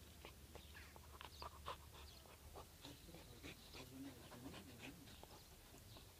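Faint sounds of Caucasian Shepherd × Central Asian Shepherd (alabai) mixed-breed puppies: many small scuffling clicks, with a few soft wavering whimpers around the middle.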